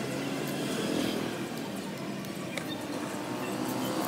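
Steady street background with a low traffic hum, and a faint click about two and a half seconds in.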